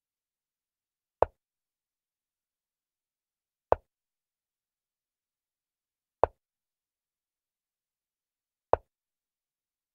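Chess piece-move sound effect: a short click each time a piece is set down on the animated board, four times at an even pace about two and a half seconds apart.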